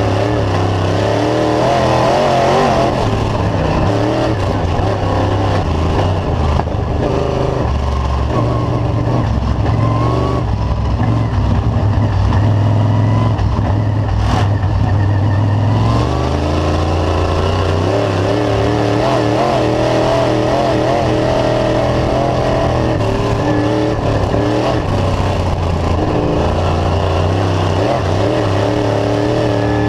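A dirt late model's GM 602 crate V8 running at speed on the clay oval, heard from inside the car. The engine note rises and falls several times as the car goes around the track.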